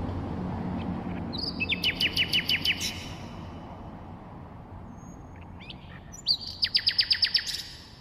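Common nightingale singing: two phrases, each a fast run of about ten loud repeated notes, one about a second and a half in and one near the end, with a few scattered notes between them. A steady low background rumble runs underneath.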